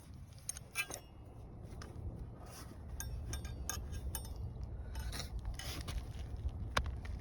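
Hand roofing tools scraping and clicking against asphalt shingles and nails, in short irregular strokes, with one sharp click near the end.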